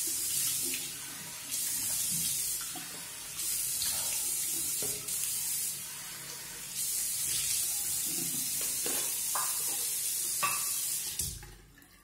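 Water running from a tap into a sink, the sound of the stream changing several times, then shut off near the end.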